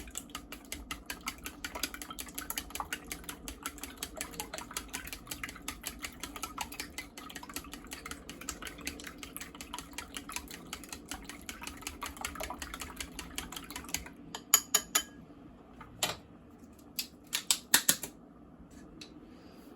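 Kitchen utensils clicking rapidly and evenly for about fourteen seconds over a low steady hum, then a few louder, separate clinks and knocks.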